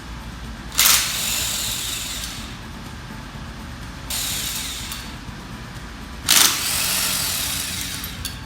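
A hand-held power tool run in three short bursts, the last one the loudest, each starting suddenly and fading over a second or two, typical of spinning bolts out of a pump bearing frame's cover plate.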